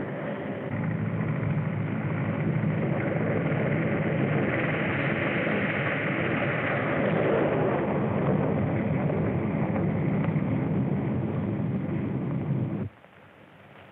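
Steady, dense vehicle engine noise on a muffled early-sound-film track. It cuts off abruptly about a second before the end.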